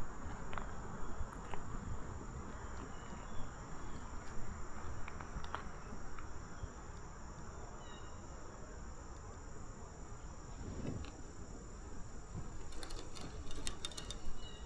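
Insects trilling in a steady high-pitched drone over a low background rush, with a few light clicks near the end.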